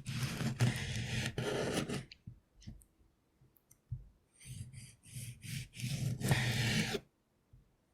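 Knife slicing through tomatoes on a cutting board: two spells of scraping cuts with sharp taps of the blade, separated by a pause of a couple of seconds.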